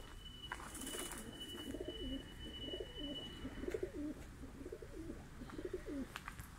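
Mardin play pigeons cooing, a low wavering coo repeated many times over several seconds.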